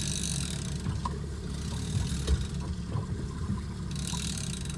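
Small boat on open water: a steady low rumble with wind and water hiss, the hiss fading after about half a second and returning near the end. A few faint clicks and knocks sound around the middle.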